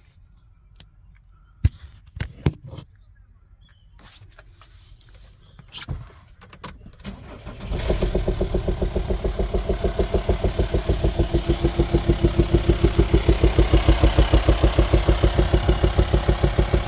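A few sharp clicks and knocks, then the VW Transporter's 2.5-litre five-cylinder TDI diesel starts about 8 s in and settles into an idle with a strong, even pulsing beat. The seller lists the engine with suspected top-end knocking.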